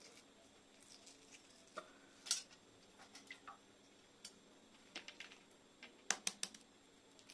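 Hard-boiled eggshell being cracked and peeled off by hand: faint, scattered crackles and ticks, with a quick run of several clicks about six seconds in.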